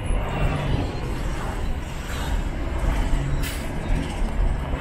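Traffic and road noise heard from inside a moving car: a steady low rumble as buses and cars pass close by, with a brief hiss about three and a half seconds in.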